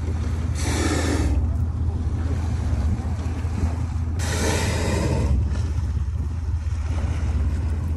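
Two humpback whale blows, each a forceful exhalation about a second long, about three and a half seconds apart, over the steady low rumble of the boat.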